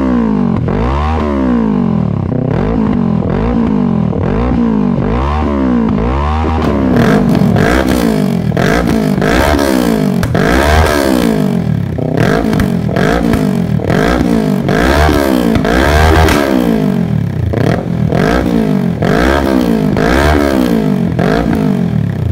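2023 Kawasaki Versys 650's parallel-twin engine, breathing through an aftermarket full exhaust system, revved over and over while standing: the pitch rises and falls back about once a second. The revs climb higher and louder from about a third of the way in.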